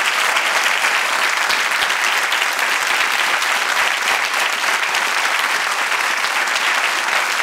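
A large seated audience applauding steadily: a big, even round of clapping.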